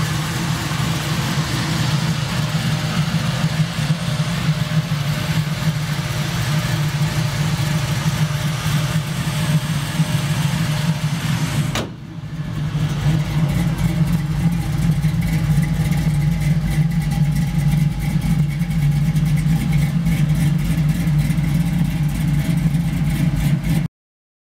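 Built LS1 5.7-litre V8 running at a steady idle through a Flowmaster-muffled exhaust. About halfway through the sound drops out for a moment and comes back deeper, then it stops abruptly near the end.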